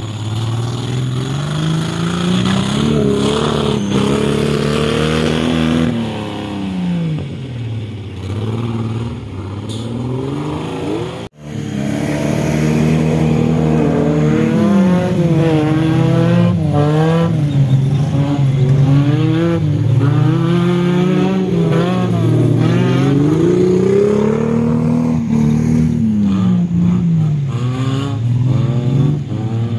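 Off-road buggy engines revving hard, the pitch climbing and falling again and again. The sound drops out briefly about a third of the way in, then the revving goes on.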